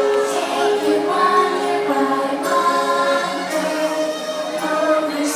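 Fireworks show soundtrack music with a choir singing long held notes.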